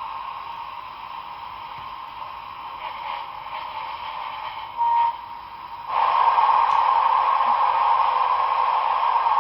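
A model locomotive's sound decoder playing a steady hiss through its small speaker, thin and narrow in range. About five seconds in there is a short beep, and a second later the hiss jumps suddenly louder.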